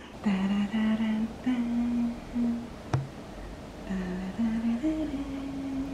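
A woman humming a slow tune to herself, a string of held notes with short breaks, ending on a longer, higher note. There is a single sharp click about three seconds in.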